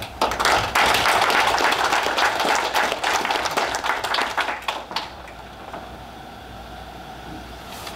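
Audience applauding, starting just after the start and dying away about five seconds in.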